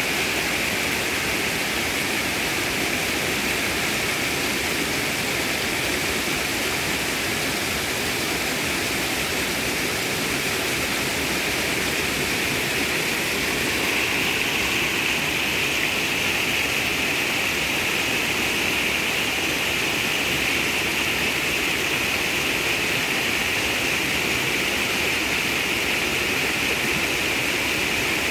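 Mountain creek running high and fast, white water rushing over and between boulders in a steady, unbroken rush of water noise, a little louder from about halfway through.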